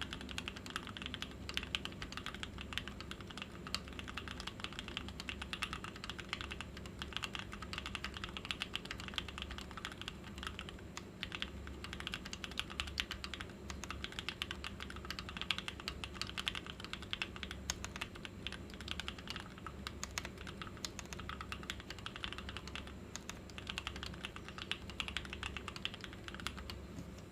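Vortexseries GT-6 mechanical keyboard in an acrylic case being typed on: a fast, continuous run of key clicks and clacks that stops near the end.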